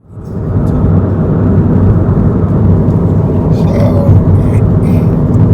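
Toyota Corolla iM's 1.8-litre four-cylinder engine under way, a steady drone with road noise. It fades in from silence at the start.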